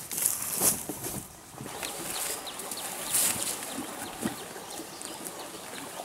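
Footsteps crunching over dry leaves and twigs in the first second. Then outdoor ambience with many short, quick, falling chirps from small creatures, and a brief rustle about three seconds in.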